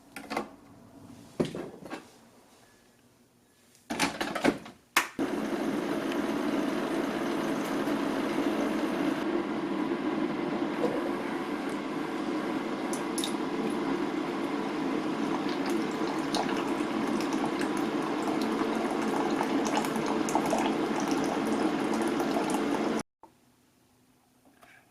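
Coffee running steadily into a ceramic mug, filling it for about eighteen seconds before stopping abruptly. A few short clinks and knocks come before it.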